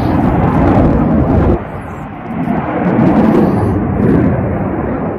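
Wind buffeting the phone's microphone: a heavy, low rumble that drops away briefly about a second and a half in, then returns.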